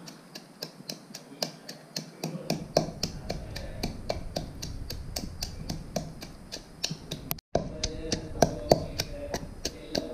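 A pestle pounding red onion and garlic in a mortar, a steady beat of sharp knocks about three a second.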